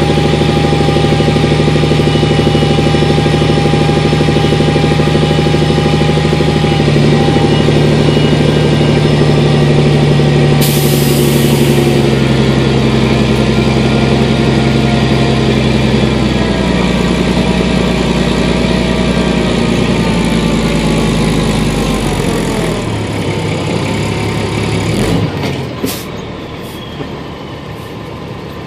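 Truck engine and drivetrain running under way, a steady drone with a whine over it and a brief hiss about ten seconds in. Near the end the pitch falls as the vehicle slows, a few knocks sound, and the engine noise drops much lower.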